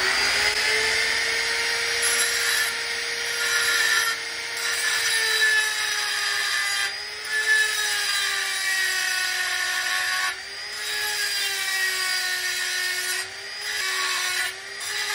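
Small electric die grinder running with a cone-shaped burr grinding the edge of a steel tube: a steady high whine with a rasping grind, its pitch sagging slightly and recovering as the burr bites into the metal and eases off.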